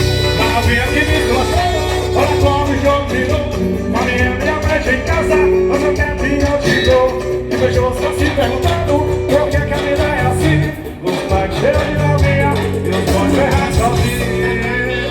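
Music playing loud over a street carnival sound system, with a short dip in level about two-thirds of the way through.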